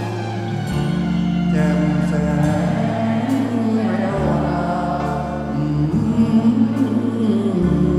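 A man singing a ballad live into a handheld microphone, with band accompaniment of held chords and bass notes under his voice.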